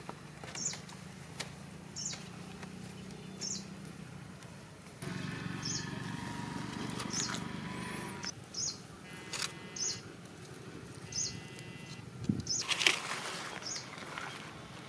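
Feathers being pulled from a chicken carcass by hand, giving soft rustles and tearing sounds, with a louder burst of rustling a little before the end. Short high chirps repeat about once a second behind it.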